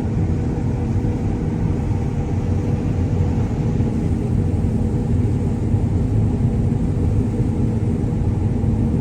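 John Deere combine harvester running steadily while cutting barley, heard from inside the cab: a loud, even engine and machinery drone with several held low tones.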